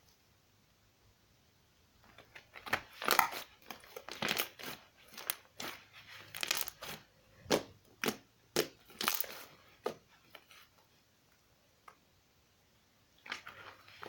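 Slime being squeezed and pressed by hand: a run of irregular crackling, crunching squishes for several seconds, then a pause, then a few more near the end.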